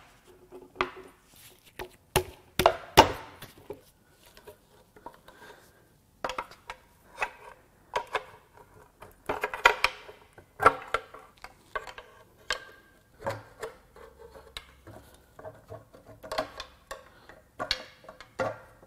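Steel pry bar levering a sealant-glued aluminium timing cover off a Toyota 2AR-FE engine: irregular metal clicks, knocks and short scrapes as the bar bites and the cover shifts.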